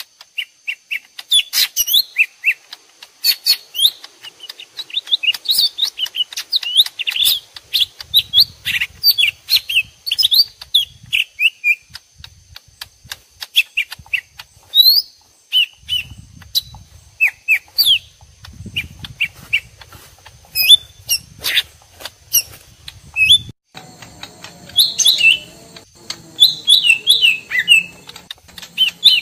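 Cucak ijo mini (small green leafbirds) calling: a fast, dense string of sharp chirps and short falling whistled notes from two birds answering each other as if fighting, mixed as a lure call for trapping the species. A steady high tone joins near the end.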